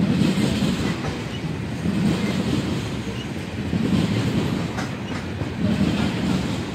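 Freight train of tank cars rolling past: a steady rumble of steel wheels on the rails, with a clickety-clack that swells about every two seconds as each car's wheels cross the rail joints.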